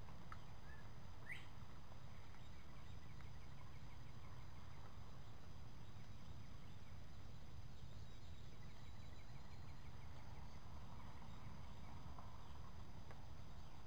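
Woodland ambience: a steady low rumble with a few faint bird chirps, one rising sharply about a second in, and a faint rapid ticking trill for several seconds in the middle.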